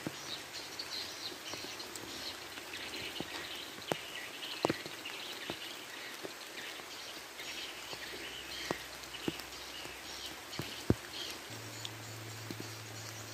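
Light rain falling on a river and the bankside vegetation, a steady hiss, with birds chirping in the background and occasional sharp taps.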